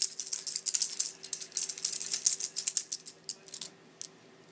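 Plastic baby toy keys on a ring being shaken: a fast, dense clatter of clicks that thins out to a few scattered clicks near the end.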